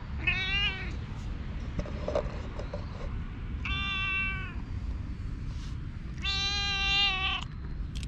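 A cat meowing three times, short calls with the last one the longest at about a second, over a steady low rumble.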